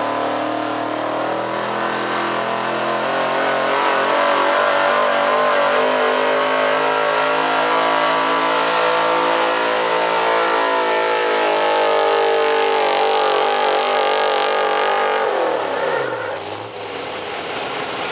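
4x4 pickup truck engine at full throttle pulling a weight-transfer sled, held at high revs with its pitch climbing gradually as the truck moves down the track. About three-quarters of the way through the revs fall away sharply as the throttle is let off at the end of the pull, and the engine settles lower.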